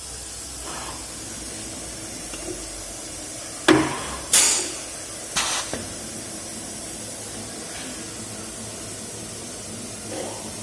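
Pneumatics of a CNC woodworking machine on test: a sharp clack about four seconds in, then two short blasts of air, over a steady hiss.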